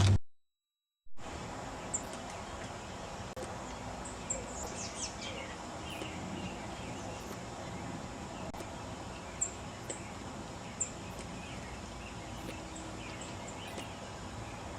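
Steady outdoor background noise with scattered short bird chirps and calls, after about a second of dead silence near the start.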